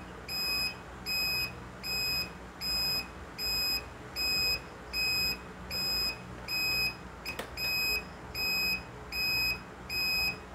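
Motorcycle turn-signal buzzer beeping in time with the flashing signal lights: one steady high beep about every three-quarters of a second, about fourteen in all. A single sharp click comes about seven seconds in.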